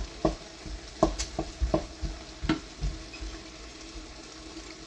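A cooking utensil stirring ground beef in a pan and knocking against it, with food sizzling in the pan. Several sharp clicks come in the first three seconds, then only the sizzle continues.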